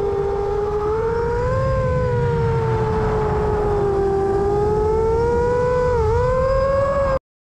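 FPV quadcopter's Brother Hobby 2806.5 motors and propellers whining in flight, their pitch drifting up and down with the throttle and dipping sharply about six seconds in. The sound cuts off abruptly near the end.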